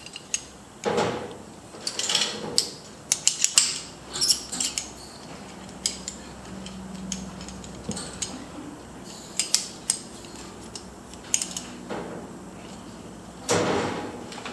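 Metal climbing hardware clinking and clacking: a figure-eight descender and carabiners knocking together as they are handled. Rope rustles as it is pulled through, about a second in and again near the end.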